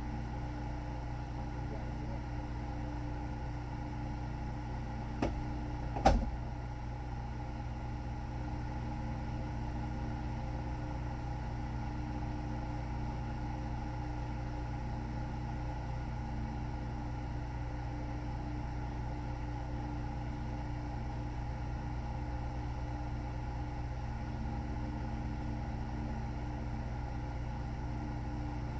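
Steady low mechanical hum, even in level throughout, with two short clicks about five and six seconds in.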